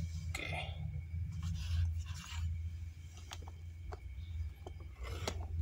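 Handling noise as the airsoft spring pistol is moved close to the microphone: soft rubbing and scraping, with a few light clicks around the middle, over a steady low hum.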